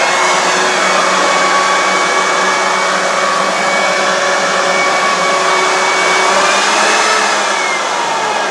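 Corded electric leaf blower running at full speed: a steady whine over rushing air. It starts to wind down at the very end as it is switched off.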